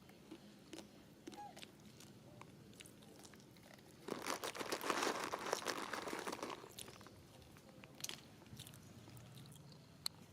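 Close crunching and crackling, as of a monkey biting and chewing crunchy food. It is loudest and densest for about three seconds from about four seconds in, with scattered small clicks and snaps around it.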